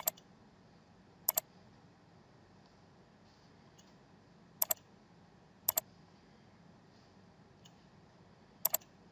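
Computer mouse button clicking five times, at irregular intervals, each click a quick pair of sharp ticks, over faint room hiss.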